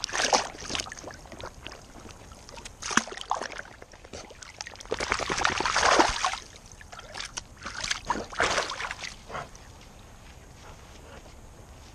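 A dog splashing through shallow lake water, its legs churning the surface. There is a splash at the start and another a few seconds in, the longest and loudest about halfway through, then a few more before it settles to faint lapping water.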